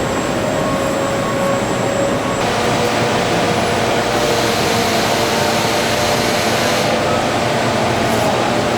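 Steady, loud factory machinery noise: an even roar with faint steady tones in it, changing abruptly a few times.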